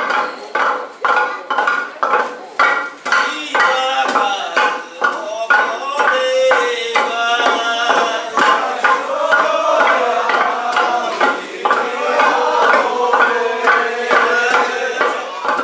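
Several long wooden pestles pounding steamed rice in a wooden mortar, a quick, steady rhythm of knocks about two to three a second. From about three seconds in, men's voices chant along, with a long held note near the end.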